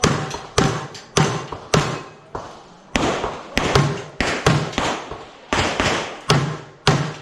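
Handgun shots fired in quick succession during an IPSC course of fire, about two a second with some faster pairs, each a sharp crack with a short echo after it.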